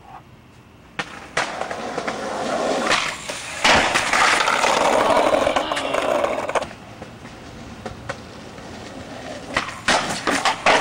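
Skateboard wheels rolling over pavement, close to the microphone: a steady rolling noise starts about a second in, grows louder, and drops away after about six and a half seconds. Near the end come several sharp clacks of a skateboard.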